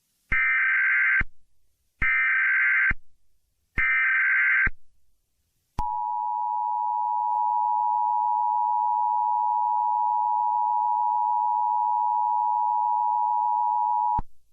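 Emergency Alert System tones: three short bursts of warbling SAME header data, about a second apart, then the steady two-tone attention signal held for about eight seconds and cut off sharply near the end.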